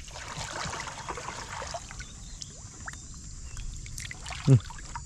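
Shallow water splashing and trickling as hands scoop goldfish out of it, busiest in the first couple of seconds and then quieter. A short voice sound about four and a half seconds in.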